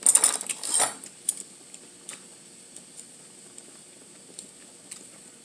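A brief clatter of dishes and utensils being handled during about the first second, followed by a few light clicks and taps.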